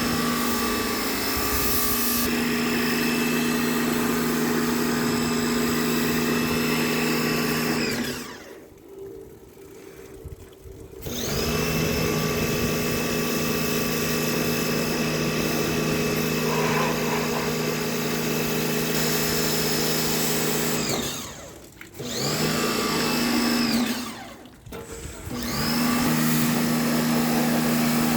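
Electric jet (pressure) washer pump motor running with a steady hum and a high whine. It stops three times and starts again, its pitch rising each time it spins back up.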